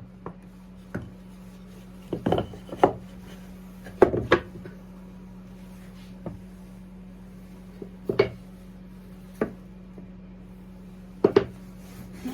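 Wooden birdhouse parts and hand tools being handled on a workbench: scattered knocks and clatters at irregular intervals, over a steady low hum.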